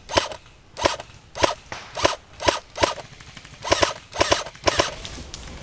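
Airsoft rifle firing about ten single shots, each a sharp pop, spaced unevenly about half a second apart.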